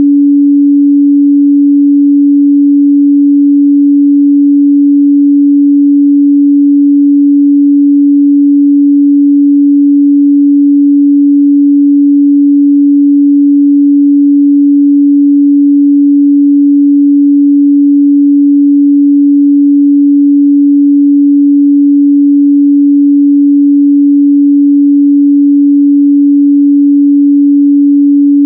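A steady 285 Hz sine-wave test tone, a single pure pitch held unchanging and loud, used to check a speaker's or headphone's mid-range response.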